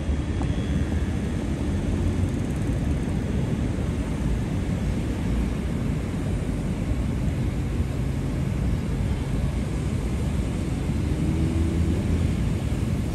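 Steady low rumble of city street ambience, mostly traffic noise, with no single event standing out.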